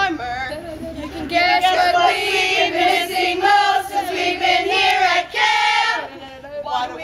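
A group of girls and women singing a song together in unison, with a short break near the end.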